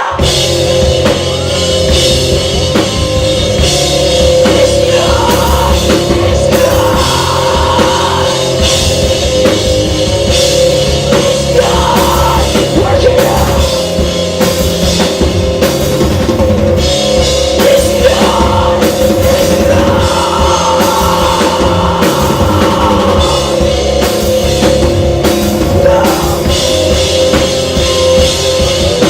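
Live rock band playing loudly, the drum kit prominent in the mix.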